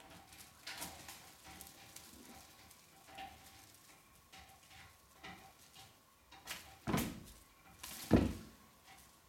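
A cat's paws and body scrabbling and knocking lightly on a wooden floor as it plays with a wand toy, with two heavier thumps toward the end as it jumps and lands.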